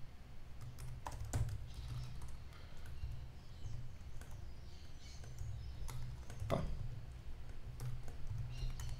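Typing on a computer keyboard: irregular, sparse keystrokes with a couple of louder key presses, over a low steady hum.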